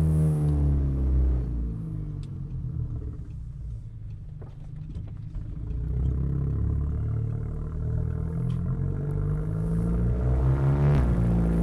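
Exhaust of an Audi A3 2.0 TFSI turbo four-cylinder with downpipe and cat-back exhaust while driving: the revs fall away at first and it goes quiet, then it accelerates again with rising pitch, getting louder near the end, where the revs dip briefly and climb once more as it shifts up.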